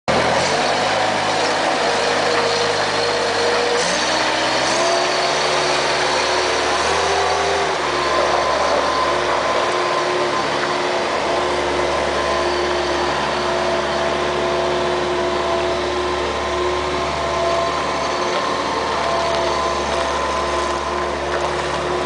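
Bobcat 763 skid steer loader's diesel engine running as the machine drives and turns. Its pitch steps up and down a few times in the first several seconds, then holds steady.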